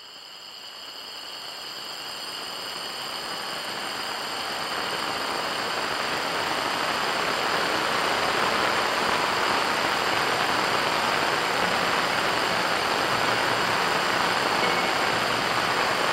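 Steady rainfall that fades in over the first several seconds, then holds level.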